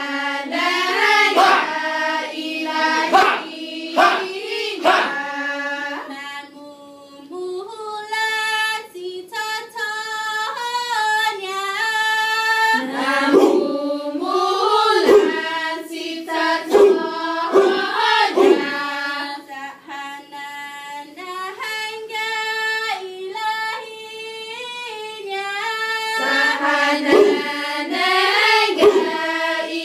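A group of women singing a Chamorro chant together, holding notes and stepping from pitch to pitch, with sharp percussive hits scattered through the singing.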